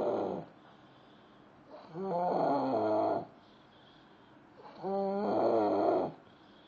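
A person snoring loudly, with a rough, pitched snore about every three seconds, each lasting about a second, and quiet gaps between breaths.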